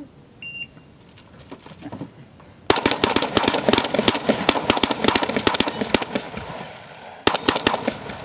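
A short electronic beep, then about two seconds later a rapid run of shotgun shots from two shooters firing at once, the blasts following each other several times a second with a brief lull near the end before more shots.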